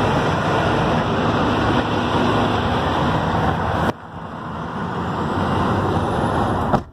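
Wind buffeting the phone's microphone over an idling diesel semi truck. The noise drops sharply about four seconds in, builds again, and cuts off abruptly near the end as the phone moves into the cab.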